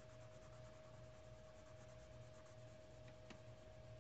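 Faint scratching of a wax-based brown colored pencil shading on paper, over a steady hum. A small click a little past three seconds in.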